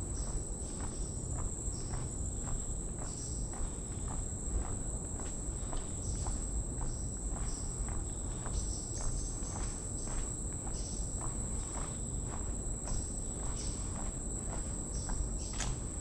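Footsteps on a wooden boardwalk at a steady walking pace, about two a second, over a continuous high-pitched insect drone and a low rumble.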